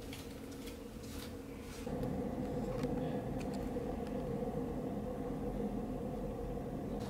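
Steady low hum and rumble of background ambience with a few faint ticks. It becomes louder about two seconds in.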